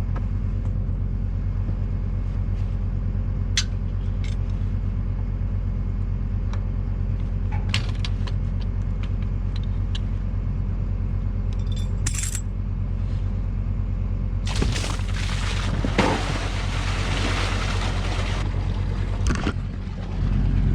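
Tractor engine running steadily, with scattered metal clinks of a chain. About two-thirds of the way in, a loud rushing noise lasts about four seconds as the lifted hose drains liquid manure into the pit.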